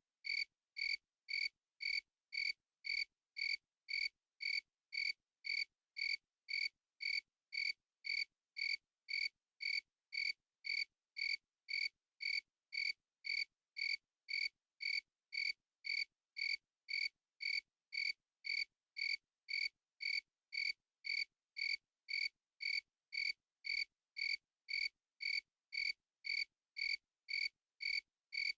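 A single cricket chirping in a steady, even rhythm, about two high-pitched chirps a second, with silence between them.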